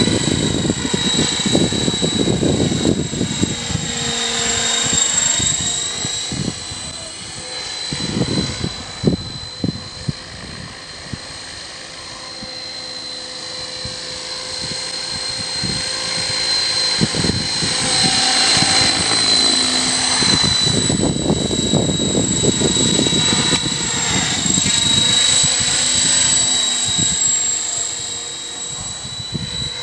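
KDS Innova 550 flybarless RC helicopter with KBDD main blades in flight: a steady high-pitched whine from the drivetrain over the rush of the rotor blades. It fades for a few seconds as the helicopter moves away, then swells again as it comes back closer.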